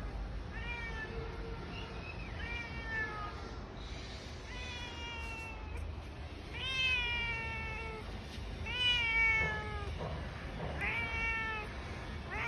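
Domestic cat meowing repeatedly: about six drawn-out meows, each falling in pitch, the loudest a little past the middle. The cat is stuck up on a high wall, unable to get down.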